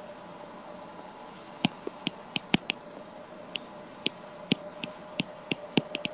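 Stylus tapping and clicking on a tablet screen while writing by hand: irregular sharp ticks, starting about a second and a half in and coming thick and uneven after that, over a faint steady hum.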